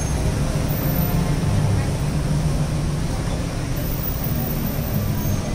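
Lamborghini Huracán's V10 engine running at low revs as the car pulls away slowly, a steady low engine note with no revving.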